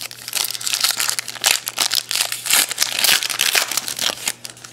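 Red foil wrapper of a 2011 Donruss Elite football card pack being pulled open by hand, a dense crinkling that stops near the end.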